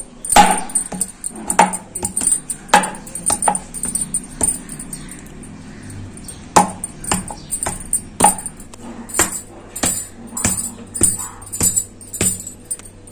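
Background music with sharp, irregularly spaced percussive beats.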